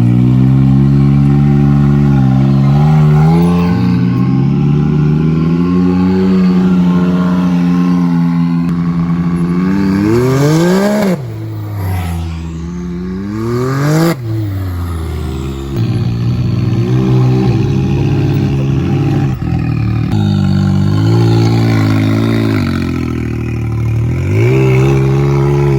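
Can-Am Maverick X3 side-by-side's engine running with the revs rising and falling, and two quick sharp rev-ups about ten and fourteen seconds in.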